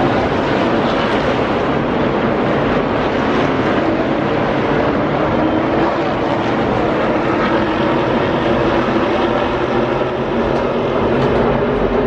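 A field of NASCAR Cup Series stock cars with V8 engines racing past at full throttle at the start of the race: loud, continuous sound of many engines at once.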